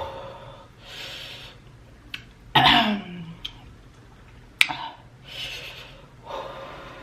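A person breathing hard in rushes, reacting to very spicy food, with one loud short vocal outburst about two and a half seconds in that falls in pitch, like a cough or groan. A few sharp clicks come in between, the loudest about four and a half seconds in.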